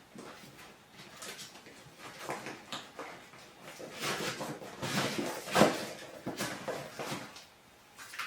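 A large roll-top duffle dry bag being handled: its heavy fabric and compression straps rustle and scrape in irregular bursts, with a sharper knock about five and a half seconds in.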